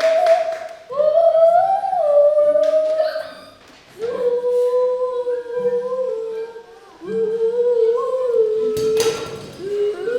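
Children's voices singing or humming a tune together, unaccompanied, in held phrases with short breaks between them. A brief noisy burst comes about nine seconds in.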